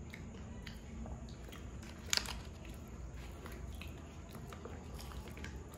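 Faint scattered crunches, clicks and wet squishes of crisp pani puri shells being cracked open, filled and chewed, with one sharper crack about two seconds in.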